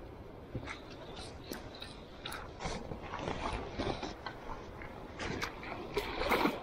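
Water splashing and sloshing in a stream, with irregular sharp clicks and knocks and a louder splashy cluster near the end.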